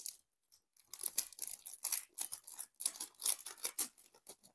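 Packaging crinkling and tearing by hand while board-game components are unpacked: a dense run of irregular crackles starting about a second in and stopping shortly before the end.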